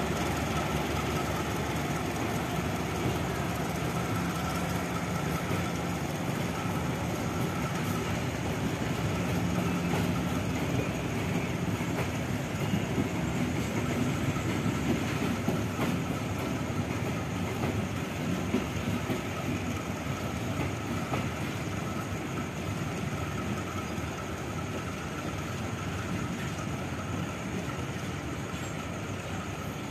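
Kutojaya Selatan economy passenger train pulling out, its carriages rolling past on the rails with a steady rumble and scattered wheel clicks. The sound eases slightly near the end as the last car passes.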